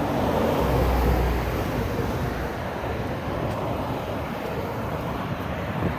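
City street traffic: a steady wash of vehicle engine and tyre noise, with a heavier low engine rumble in the first second or so, easing off gradually.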